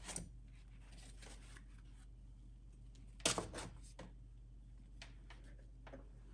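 Quiet handling noises at a truck's battery, with one brief sharp plastic clatter about three seconds in and a few small clicks after it, as the battery's plastic protective cover is slid off.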